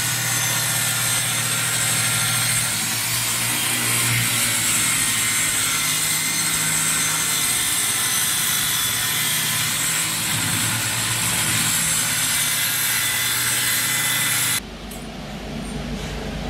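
Handheld electric circular saw running and cutting lengthwise through a plywood sheet: a steady motor whine with the blade's cutting noise, held without a break. Near the end it cuts off suddenly, leaving a quieter steady background noise.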